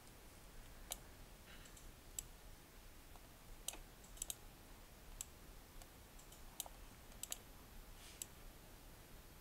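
Faint, irregular clicks of a computer mouse and keyboard, spaced about a second or more apart, some in quick pairs.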